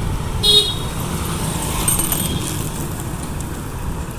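Street traffic: two-wheelers and a car running past with a steady low engine rumble. A short, high-pitched beep sounds about half a second in, with a fainter one near two seconds.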